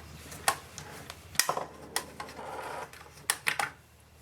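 Scattered sharp clicks from a screwdriver and the monitor's front panel being handled, with a brief scraping sound a little after two seconds in, as the panel's screws are undone and the panel is worked loose.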